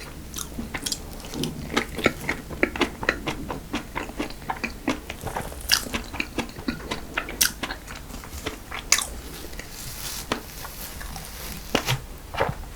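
Close-miked eating of dessert: biting and chewing with many small wet crackles and some sharper crunches, of the kind a crisp-topped choux pastry with cream filling makes.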